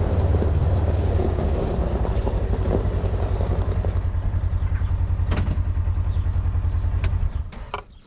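Side-by-side UTV's engine running under way with a steady, pulsing low throb, heard from inside the open cab. The engine sound drops away sharply about seven seconds in, followed by a few light clicks and rattles.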